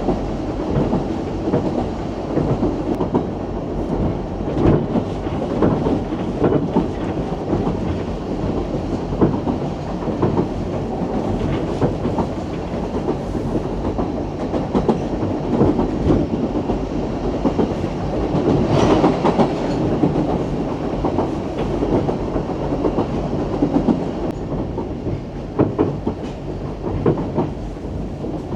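Steam railway train running along the line, its wheels clattering steadily over the rail joints, with one louder burst of clatter about two-thirds of the way through.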